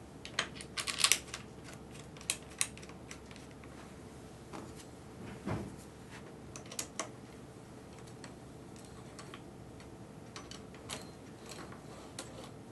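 Light clicks and taps of hands and a small tool working on a motorcycle throttle housing and cable, coming in scattered small groups, with a duller knock about five and a half seconds in.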